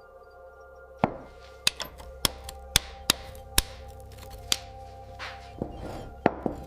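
Irregular sharp knocks and clinks of tools and parts being handled during gun restoration work, about nine over a few seconds, over steady background music.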